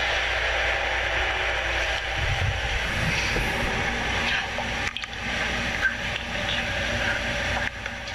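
Steady hissing rumble of background noise with no voices, briefly dropping out about five seconds in and again near the end.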